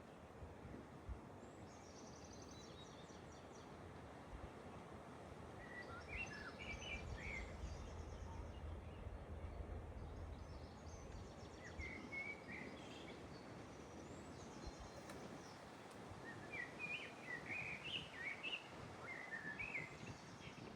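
Several birds chirping and singing in short, scattered phrases, some higher and trilling, over a steady low background rumble.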